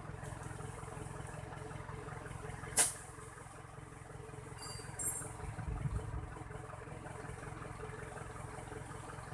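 Vehicle engine idling with a steady low hum, with one sharp click about three seconds in and a brief knock a little later.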